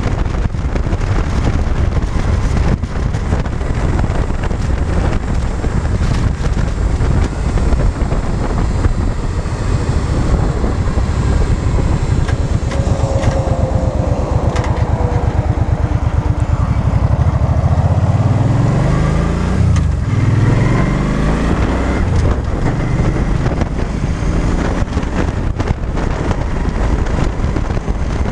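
Cruiser motorcycle under way with heavy wind rush on the microphone. About two-thirds of the way through, the engine note rises, breaks off and rises again as the bike accelerates away through the gears.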